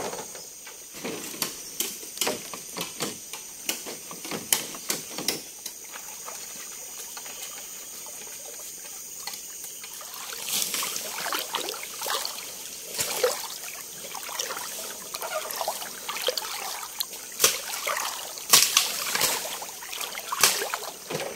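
Water trickling and splashing in irregular spurts, with scattered sharp knocks in the first few seconds.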